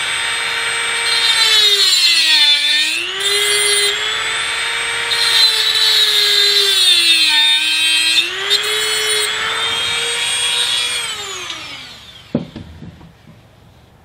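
Dremel rotary tool with a cutting stone grinding down the protruding metal fastener tips on a model tank's road wheel hub. Its high, steady whine dips in pitch twice as it cuts. Near the end it winds down and stops.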